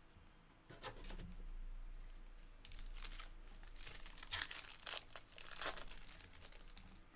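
Foil wrapper of a baseball card pack being torn open and crinkled by hand: a run of short crinkling, tearing rustles, loudest between about four and six seconds in.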